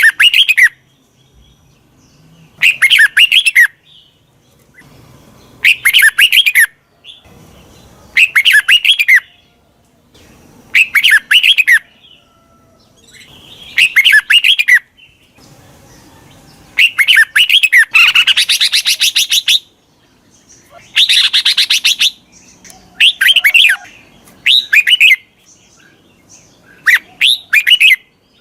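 Red-whiskered bulbul song: short loud chirping phrases repeated about every three seconds, with two longer, harsher calls a little past the middle. It is a decoy call used to lure wild bulbuls in.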